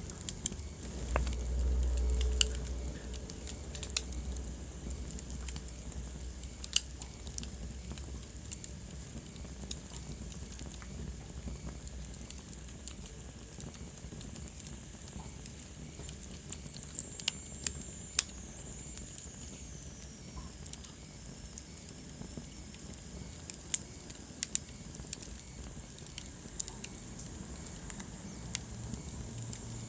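Wood fire in a fireplace crackling, with scattered sharp pops over a low steady rumble of the flames. The low rumble swells briefly about a second in, and a faint high whistle slides down in pitch around the middle.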